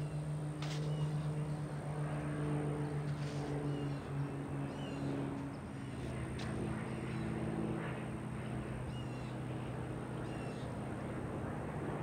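Steady low hum of a JCB tracked excavator's diesel engine running, with birds calling in short chirps several times over it.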